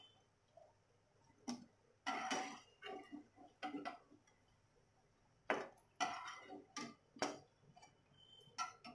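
A perforated steel skimmer knocking and scraping against a wok, several irregular clinks with a short metallic ring, as fried gulgule are scooped out of hot oil. A faint steady hiss of oil frying runs underneath.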